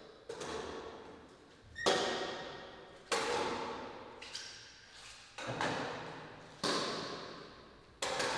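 A series of sharp strikes, about one every second or so, each ringing on and fading away before the next.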